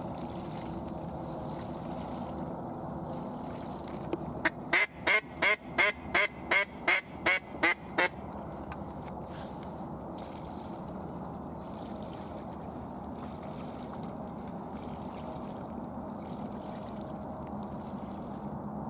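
A rapid run of about a dozen loud duck quacks, about three a second, starting about four seconds in and stopping about four seconds later, over a steady low background hiss.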